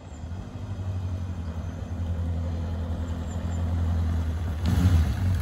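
A 1984 Honda CB750FD's air-cooled inline-four engine runs at low speed as the motorcycle rides slowly up towards the listener. It gets steadily louder as it draws close, with a further jump in loudness near the end.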